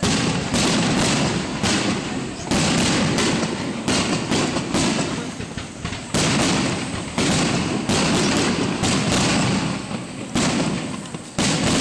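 Aerial firework shells bursting in rapid succession: a string of loud bangs, often several a second, each trailing off before the next. There are brief lulls between clusters.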